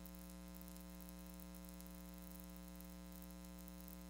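Near silence: a faint, steady electrical mains hum with a light hiss, unchanging throughout.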